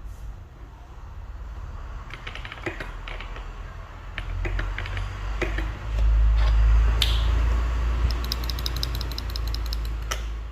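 Typing on an NJ68 mechanical keyboard with Holy Panda tactile switches and SA-profile keycaps: separate key clacks that grow into a quick, even run of keystrokes near the end. A low rumble rises under the typing about halfway through.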